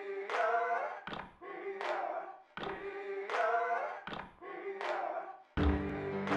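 Background music: a short choir-like sung phrase repeating about every second and a half, joined about five and a half seconds in by a fuller, bass-heavy backing that makes it louder.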